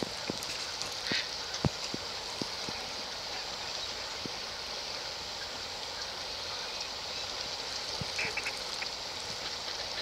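Wetland ambience from a large flock of ducks, mostly common pochards, on open water. A few short calls, about a second in and again near the end, over a steady high hiss, with scattered soft ticks.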